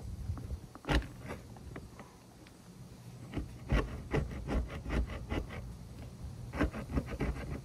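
Hand scraping tool digging old caulk out of a boat's cabin window seam: short rasping strokes, one strong stroke about a second in, then runs of about four strokes a second in the second half.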